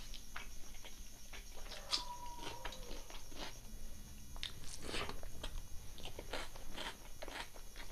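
Close-miked mukbang eating sounds: a man chewing a mouthful of rice with chicken liver and gizzard curry, with many short wet smacks and clicks of the mouth and the squelch of fingers mixing rice on a steel plate.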